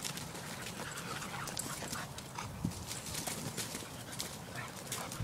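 Dogs, a Podenco Canario among them, running and chasing across dirt strewn with dry leaves: a quick, irregular patter of paws hitting the ground and scuffing through the leaves.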